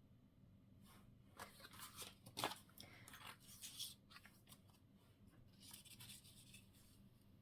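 Paper scraps being handled and shuffled: faint irregular rustling and crinkling in short bursts through the first half, with a little more about three-quarters of the way through.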